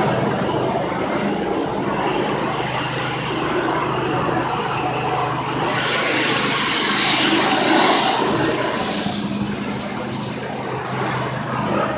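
Hot-water pressure washer running with a steady machine hum while its jet hisses against brick pavers; the spray hiss grows much louder for about two seconds in the middle.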